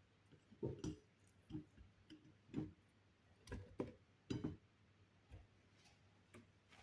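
Pieces of beetroot, orange, lemon and ginger being dropped into a blender jar: about nine light, irregular knocks spread over several seconds.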